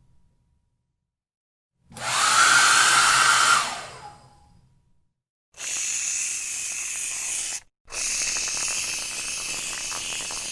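A hair dryer blows for about two seconds, then winds down and stops. Then an aerosol can of hairspray hisses in two long sprays, with a short break between them.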